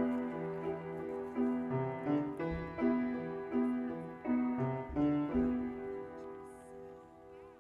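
Piano music: a melody of separate notes that fades out over the last couple of seconds.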